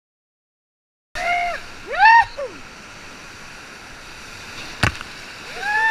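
Whitewater rapids rushing and splashing around a raft, starting suddenly about a second in, with rafters yelling in high rising-and-falling shouts, the loudest about two seconds in and more near the end. A single sharp knock comes shortly before the end.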